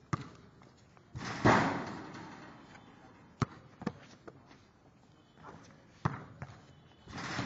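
Basketball dunks on an outdoor hoop: sharp knocks of the ball bouncing, with a loud crash at the rim and backboard about a second in that dies away over about a second, and another crash near the end.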